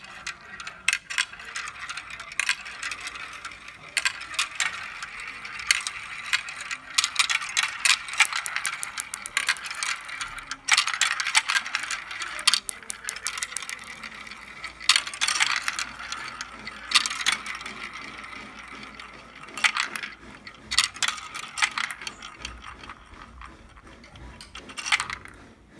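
Glass marbles rolling and clattering down a marble-run track: a continuous crackling rattle with many sharp clicks as they knock against the track and each other, with denser bursts of clicking at several points.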